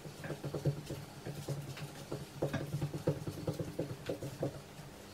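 Pointe shoes tapping rapidly and lightly on a tabletop as a dancer takes quick small steps on pointe, several irregular taps a second.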